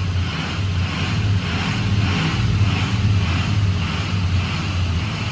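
Freshly rebuilt Ford Power Stroke V8 turbo-diesel idling steadily during its first run after the rebuild: a low, even drone with a gently pulsing hiss above it.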